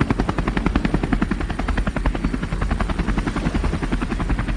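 Helicopter rotor chopping in a rapid, even beat over the steady drone of the engine.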